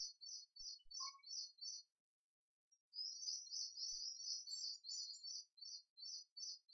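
Faint, rapid high-pitched chirping from a small bird, in runs of about four chirps a second, with a short pause about two seconds in.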